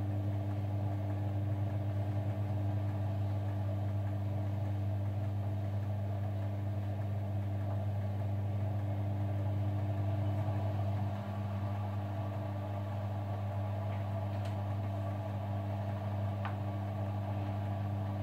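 Front-loading washing machine running with a steady low motor hum while it makes another attempt to start its spin. The level dips slightly about eleven seconds in, and there are a couple of faint clicks near the end.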